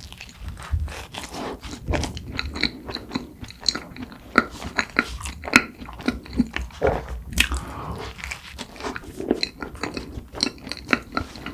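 Close-miked eating: biting into and chewing cream-filled red bean buns, with many small, sharp, irregular mouth clicks.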